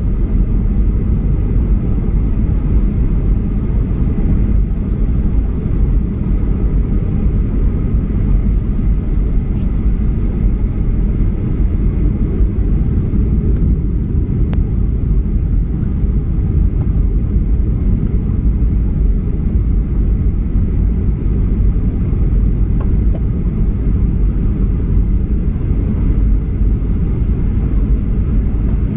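Steady cabin noise inside a Boeing 737-800 descending on approach: its CFM56 jet engines and the airflow past the fuselage as an even, low rumble.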